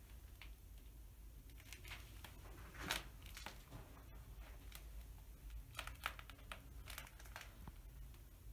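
Faint scattered rustles and crunches over a low steady rumble, with a somewhat sharper crunch about three seconds in and a cluster of them a little later.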